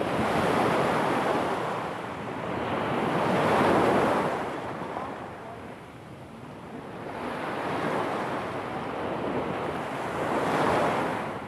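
Small sea waves breaking on a pebble beach: a rushing wash of surf that swells and falls back about four times, the loudest about four seconds in.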